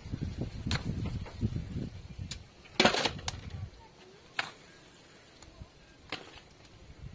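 A few scattered sharp knocks, with one louder clatter about three seconds in, over a low rumble that dies away around the middle.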